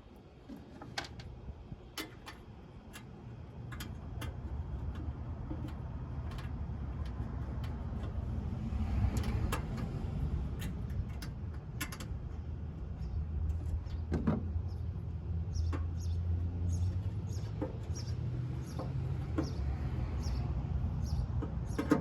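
Scattered light clicks and metallic clinks of bolts and grill parts being handled and fitted by hand, over a low rumble that builds up and is loudest through the middle.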